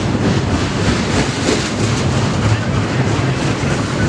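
BNSF double-stack intermodal freight train of loaded well cars rolling past close by: a loud, steady rumble of steel wheels on rail, with clicking of the wheels over the track.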